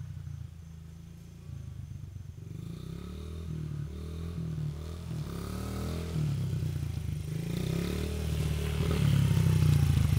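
Honda CRF100F dirt bike's small four-stroke single-cylinder engine, revving up and down as the bike rides closer, growing steadily louder and loudest near the end.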